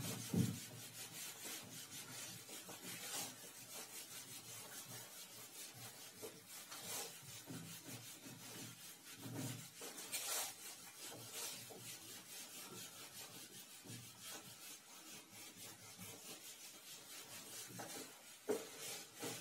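Whiteboard eraser rubbing across a whiteboard: a long run of faint, irregular swishing strokes as the board is wiped clean, one a little louder about ten seconds in.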